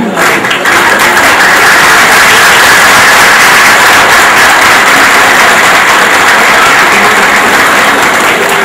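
An audience applauding loudly: a few rhythmic claps swell about a second in into dense, steady applause.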